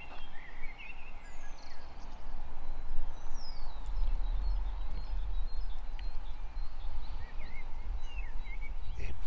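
Small birds chirping, with a few short falling whistles, over a low, uneven rumble.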